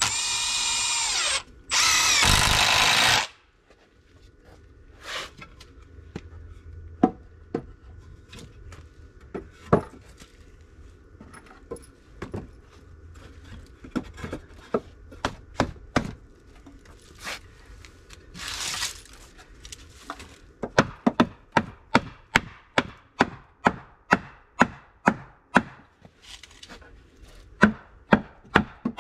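Cordless drill driving screws into a wooden frame: two loud runs of the motor in the first three seconds. Scattered knocks and taps follow, a short burst of the drill near the two-thirds mark, then a run of regular sharp knocks, two or three a second, through the end.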